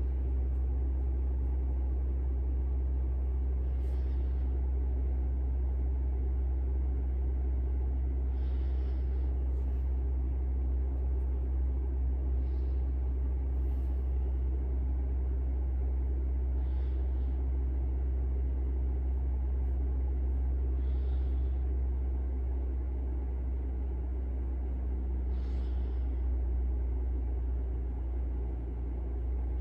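A steady low rumbling hum, with a few faint, short soft rustles every few seconds.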